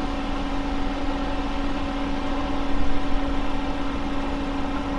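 Steady machine hum with one constant low tone.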